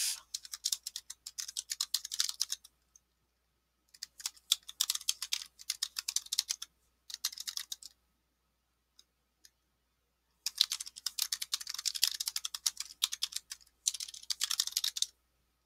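Typing on a computer keyboard: five runs of rapid key clicks with short pauses between them.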